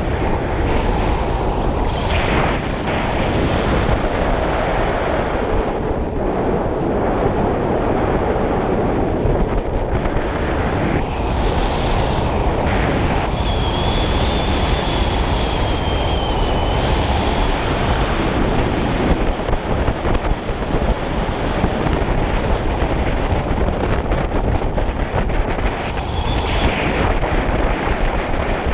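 Steady, loud wind noise rushing over the microphone. A faint high whistle-like tone is held for a few seconds in the middle.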